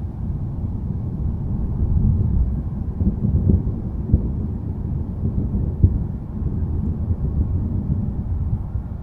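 Low rolling thunder that swells about two seconds in and slowly eases, with a few short, louder bumps in the middle.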